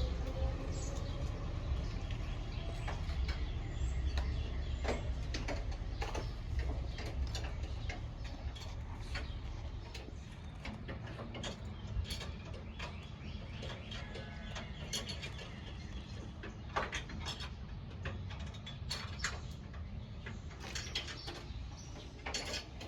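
Scattered sharp clicks and knocks, like hand work with tools, over a low steady rumble; the rumble is heavier in the first half.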